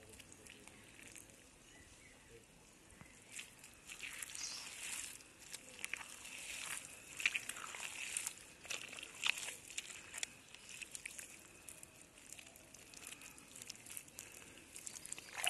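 Hands digging and squelching through wet mud and shallow water, a scatter of faint wet squelches and slaps that come thickest in the middle.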